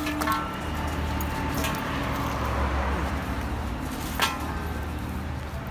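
Steady low rumble of street traffic, broken by two short ringing clinks, one just after the start and one about four seconds in.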